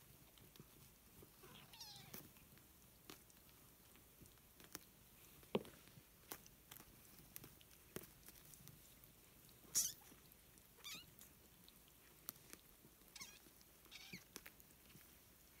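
Four-week-old kittens giving several thin, high-pitched mews, short and wavering, the loudest near the middle, with faint sharp clicks in between.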